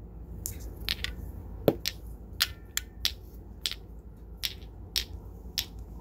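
A series of about a dozen short, sharp clicks at an uneven pace, the loudest about two seconds in.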